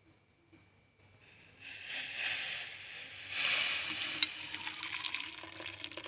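Hot tea decoction poured from the pan through a tea strainer into a cup: a steady splashing pour that starts about a second and a half in and grows louder a couple of seconds later, with one sharp click about four seconds in.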